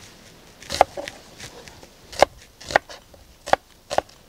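Kitchen knife slicing a white onion into thick pieces on a wooden cutting board: five or six separate sharp knocks of the blade through the onion onto the board, spaced irregularly.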